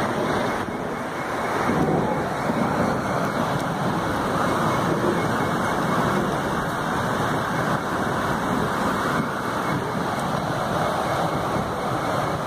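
Steady rushing noise of a rainstorm, with wind blowing on a phone microphone.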